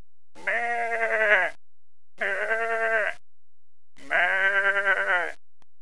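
A person imitating a goat's bleat three times in a row, each call about a second long with a quavering tremble.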